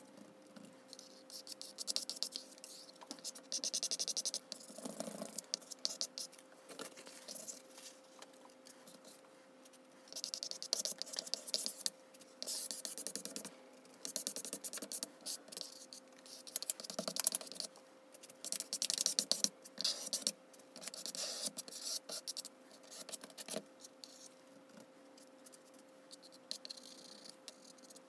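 Sped-up scraping of a plastic card spreading acrylic paint across illustration board. It comes as quick, rasping bursts of scratching, a second or two at a time, with short pauses between.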